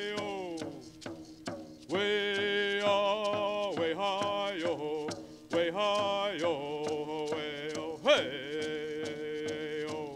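A man singing a Munsee Lenape welcome song in long held vocable phrases that slide down at their ends, with short breaks between phrases, over a steady hand-drum beat.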